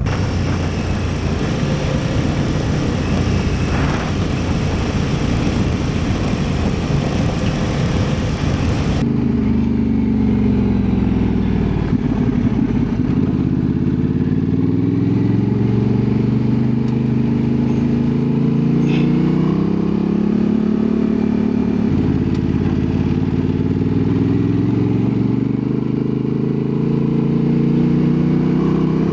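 Honda Transalp 750's 755 cc parallel-twin engine running under way, its pitch rising and falling as the throttle is opened and closed and gears are changed. For roughly the first third a heavy rushing noise covers the engine.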